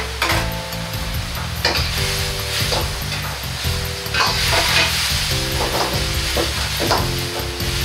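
Sauce sizzling and bubbling in a wok over a high flame, with a metal ladle stirring and scraping against the wok in several strokes, mostly in the second half.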